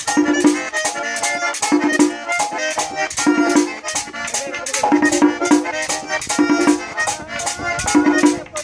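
Merengue típico played live on a Hohner button accordion, its chords and runs over a metal güira scraped in a steady, fast rhythm.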